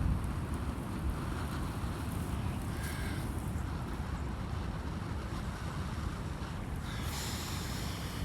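Wind buffeting the microphone in a steady low rumble. A short hiss comes about three seconds in and a longer one near the end.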